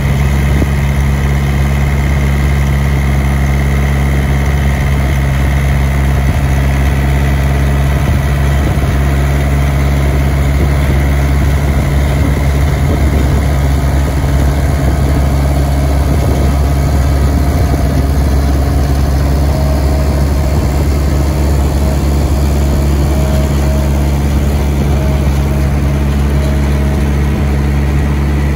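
Yanmar FX32D compact tractor's diesel engine running steadily under load while driving a GEO SBb-145 stone burier, whose rotor churns through the soil.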